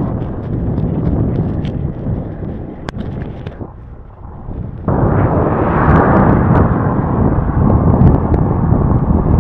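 Wind buffeting the microphone of a handheld action camera on a moving bicycle, with a few sharp clicks. It drops away for about a second around four seconds in, then comes back louder.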